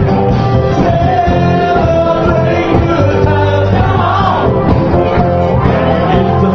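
Live band playing an upbeat song with a singer, steady bass notes under a sung melody.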